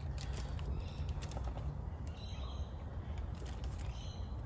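Quiet outdoor background with a bird calling twice, short high chirps about two seconds in and again near the end, over a steady low rumble. A few faint light clicks come from handling a plastic inline fuse holder.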